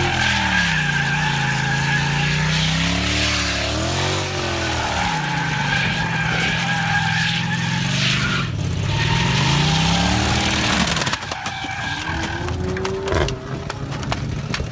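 BMW E38 sedan drifting: the engine revs up and down over and over under the steady squeal of spinning rear tires. About eleven seconds in, the engine note drops away and a ragged, ticking noise takes over, with one sharp loud crack a couple of seconds later.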